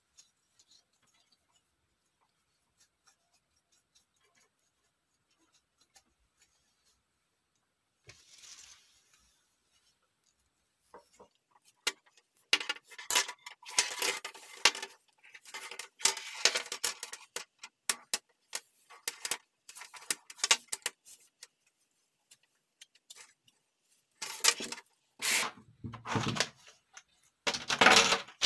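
Plastic keyboard parts clicking and clattering as they are handled. A few scattered clicks at first, then a long busy bout of rattling about halfway through, and another bout near the end.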